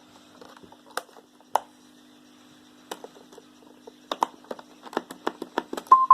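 A string of sharp clicks, a few at first and then about three a second in the last two seconds, ending in a Roomba's short double beep near the end.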